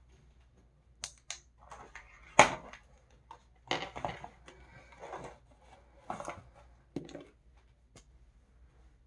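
Makeup containers and tools being handled on a bathroom counter: an irregular run of sharp clicks and short plastic clatters, the loudest about two and a half seconds in.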